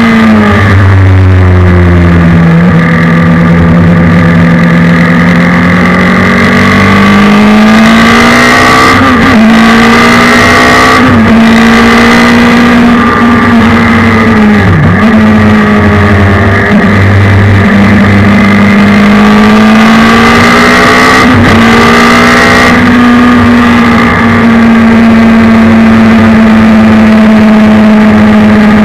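Onboard sound of a Suzuki Hayabusa 1300 four-cylinder motorcycle engine in a race car at high revs on track, loud throughout. Engine pitch holds and slowly rises and falls, dipping sharply and recovering about four times as gears change.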